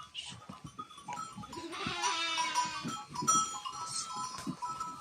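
Flock of sheep bleating, several calls overlapping, with one loud, long bleat about two seconds in.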